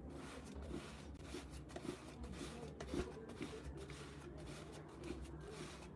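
Faint rubbing and scraping as a chapati is pressed and pushed around on a hot, oiled flat pan, with a few soft knocks.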